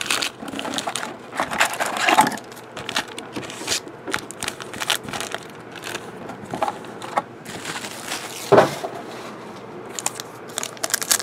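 Plastic wrapping of trading-card packs being torn open and crinkled by hand: irregular rustling and crackling, with one sharper, louder rip about three-quarters of the way through.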